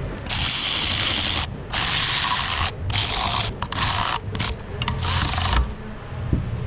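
Ratchet wrench tightening the thermostat housing bolts on a 5.7 HEMI water pump, in about six short runs with brief pauses between them.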